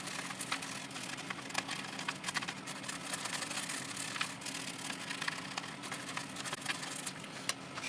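Dense, irregular scratching with many small clicks from cleaning corrosion off a liquid-damaged laptop motherboard, over a faint steady low hum.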